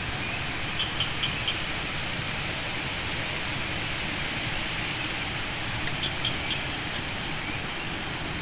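Steady hiss of night-time background noise, with short high chirping calls in quick runs of three or four, about a second in and again around six seconds in.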